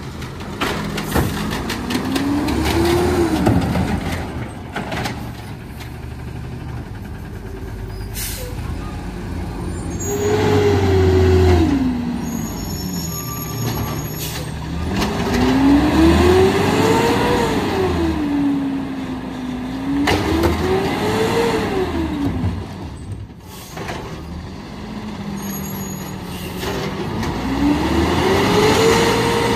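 CNG engine of a 2011 Peterbilt 320 garbage truck with an Amrep automated side loader, revved hard about five times, each rev rising and falling over a few seconds, with short hisses of air between revs.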